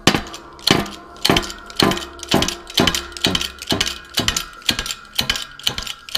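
Hydraulic shop press being pumped by hand to press the gas block off an AK-pattern barrel. It makes regular metallic clanks, about two a second, each ringing briefly.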